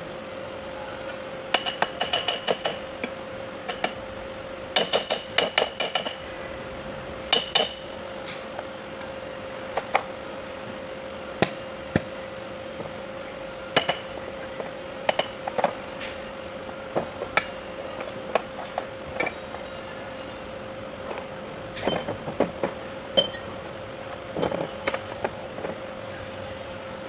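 Metal parts of a Kubota B1502 front axle (cast-iron housings, gears, bearings) being handled and set down on the bench, giving irregular clinks and knocks. They come in clusters about two, five and seven seconds in and again near the end, over a steady background hum.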